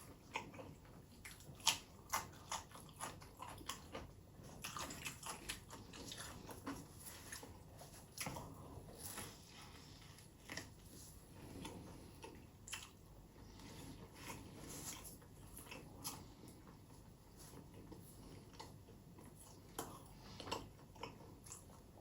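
Eating sounds: irregular crisp bites, chewing and crunching of food.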